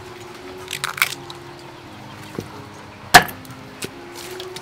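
Crisp cracks and snaps as the husk sheaths are peeled off young bamboo shoots and a knife cuts the shoots on a wooden board. The loudest, sharpest crack comes about three seconds in, with smaller snaps about a second in and near the end.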